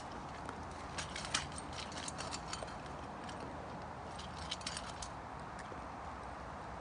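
Irregular light clicks and taps of a metal muffin tin and tennis balls as a dog noses and mouths at the balls in the tin's cups, bunched about a second in and again past four seconds.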